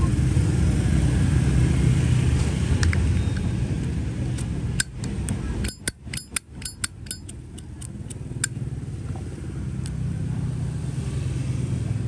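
Zippo lighter's hinged metal lid being flicked open and snapped shut, a quick run of about a dozen sharp metallic clicks near the middle, several a second, with a few single clicks before and after. A steady low traffic rumble runs underneath.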